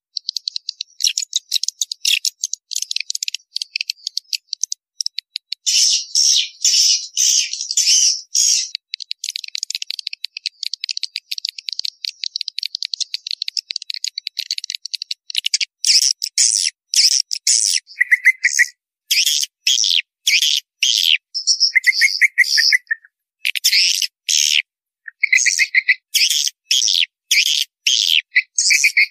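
Swiftlet call lure track: swiftlets twittering and chirping in rapid bursts, with buzzing trills coming in from about two-thirds of the way through, all thin with no low end. It is the call played from speakers in swiftlet houses to draw swiftlets in.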